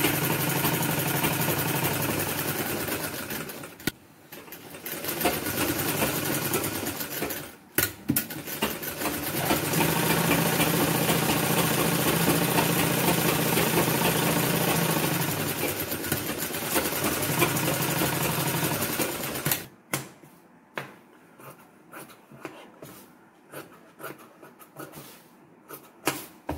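Sewing machine stitching through layered cotton fabric, running in three stretches: it pauses briefly about four seconds in and again near eight seconds, then runs steadily until it stops about twenty seconds in. After it stops, short scattered clicks as the work is handled and scissors are brought to the fabric.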